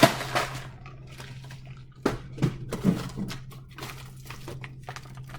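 Frozen food packages being handled: a sharp knock right at the start, then scattered crinkles, taps and rustles of packaging, over a steady low hum.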